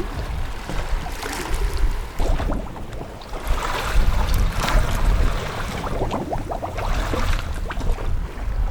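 Wind buffeting the microphone by the sea, with a rushing wash of surf and scattered small clicks and rattles.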